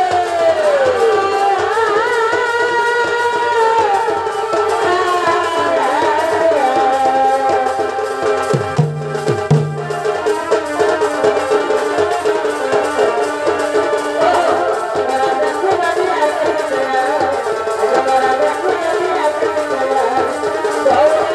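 Chhau dance music: a sustained melody with sliding, bending notes, played over fast, steady folk drumming.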